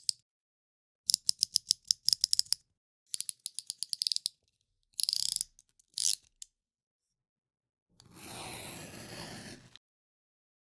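Snap-off utility knife (box cutter): its blade slider ratchets in two quick runs of clicks, about ten a second. Then come two short scrapes, and near the end a cut of about two seconds, the blade dragging through material.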